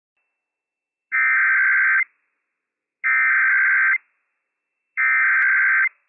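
Emergency Alert System SAME header from a NOAA Weather Radio transmitter: three identical buzzy data bursts of about a second each, a second apart. This digital header opens the alert and encodes it as a Child Abduction Emergency, so that weather radios and broadcast encoders set off their alarms.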